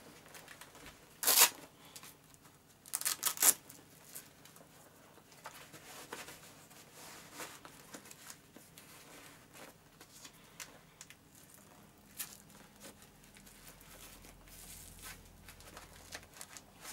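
Hook-and-loop (Velcro) straps on leather motorcycle gloves being ripped open and fastened: one short loud rip about a second in and a quick run of rips around three seconds in, then softer rustling of leather as the gloves are worked on.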